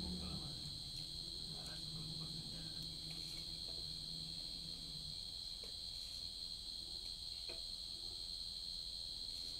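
Steady, unbroken shrill of an insect chorus, like crickets. Under it, a low hum fades out about halfway through, and there are a few faint clicks.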